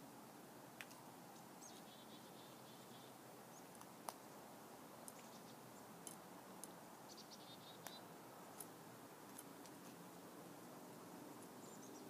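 Faint chickadee calls: a run of buzzy repeated 'dee' notes about a second and a half in and again around seven seconds. A few sharp clicks come in between, the loudest about four seconds in.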